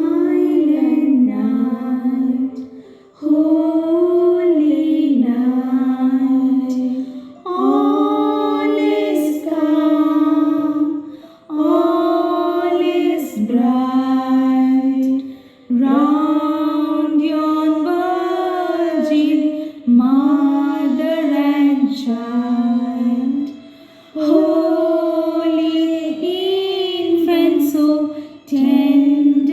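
Voices singing a slow song in sustained phrases, pausing briefly about every four seconds, with no instruments standing out.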